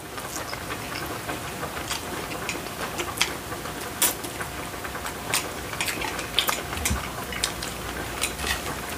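Eating sounds: chewing and slurping of spicy mixed noodles and boneless fried chicken, with many small scattered clicks from mouths and chopsticks on plates.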